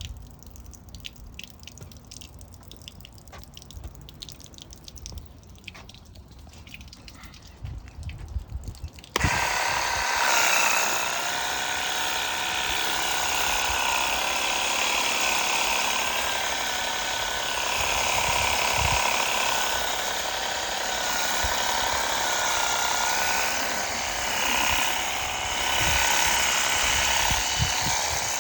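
Faint handling clicks, then about nine seconds in a Ronix 8930 20V cordless pressure washer switches on suddenly and runs steadily: its pump motor whines under the hiss of the water spray.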